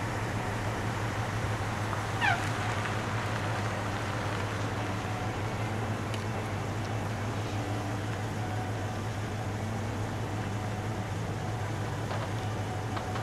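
Steady low hum of an idling engine, with one short squeal falling in pitch about two seconds in.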